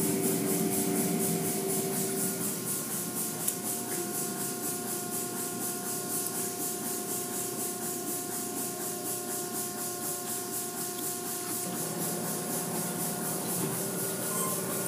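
Automatic tunnel car wash running: hanging cloth strips and brushes swishing and rubbing against a car over a steady hiss of sprayed water and foam, with a steady machine whine underneath.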